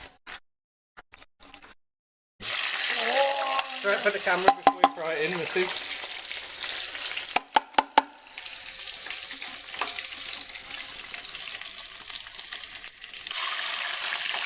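Winged insects frying in a hot pan: a steady sizzle that starts about two seconds in, with a few sharp clicks of a utensil on the pan. A brief voice cuts through about three seconds in.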